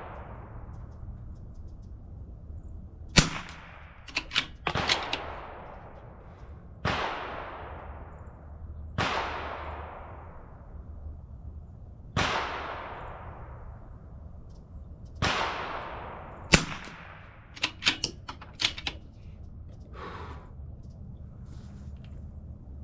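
A CZ 457 rifle firing subsonic RWS Rifle Match .22 LR, two sharp cracks about 13 seconds apart, each followed by a quick run of clicks as the bolt is worked. Between them come several fainter gunshots, each with a long fading echo.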